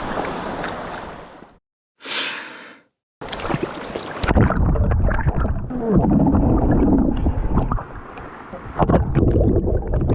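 Water splashing and gurgling with irregular clicks, in edited snippets broken by two abrupt cuts to silence about two and three seconds in.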